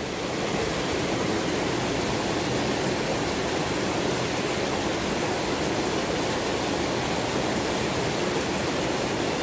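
Shallow mountain stream rushing over rocks and small cascades, a steady, even wash of water noise.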